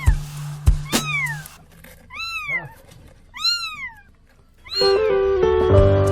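A kitten meowing, four high cries about a second apart, while it is caught between stacked firewood logs. Music comes in near the end.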